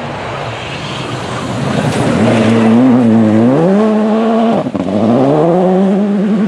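Rally car engine accelerating hard, its pitch climbing. About four and a half seconds in it cuts briefly for an upshift, then climbs again.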